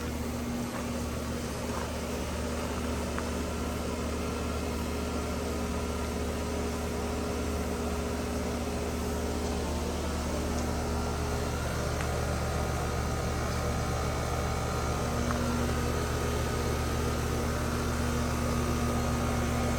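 2009 Tempstar air conditioner running with a steady electric hum and fan drone, the unit iced over and frozen up.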